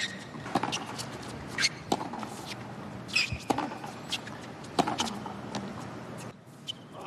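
Tennis rally on a hard court: a tennis ball is struck by racquets and bounces, giving sharp hits about every second, over a faint steady background.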